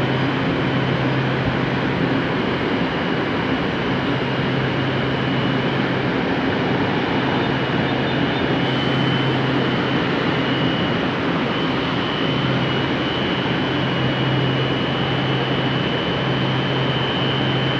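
Frota P metro train standing at the platform, its onboard equipment running with a steady low hum and a thin, constant high whine.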